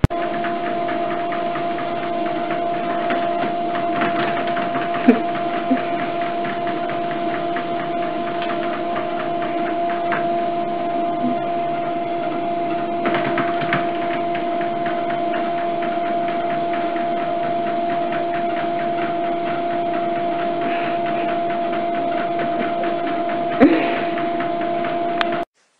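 Electric treadmill running: a steady motor whine with the whir of the moving belt, and a few light knocks as cats step and hop on the deck, the loudest near the end. The running sound stops abruptly just before the end.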